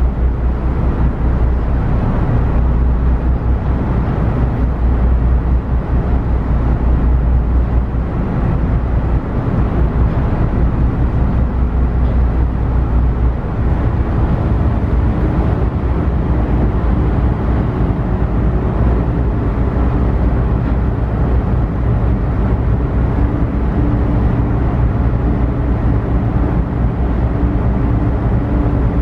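Ferry under way: a steady, heavy low rumble of engines and hull, with a steady hum coming in from about halfway through.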